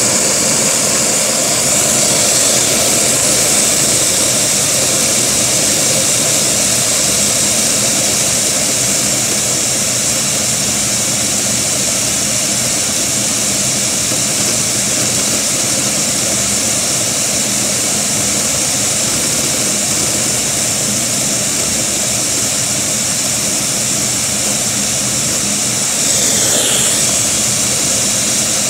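Vacuum cleaner running steadily with a strong hiss, drawing air through a Lego vacuum engine that turns over at a very low idle. Near the end a brief whistle falls in pitch as the suction changes.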